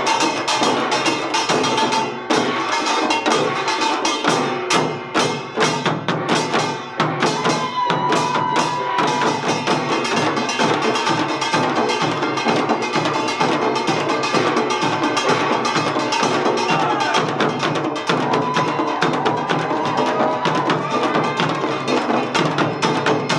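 Samulnori ensemble of kkwaenggwari (small gong), jing (large gong), janggu (hourglass drums) and buk (barrel drums) playing an Utdari pungmul rhythm, with fast, dense strokes that carry on without a break.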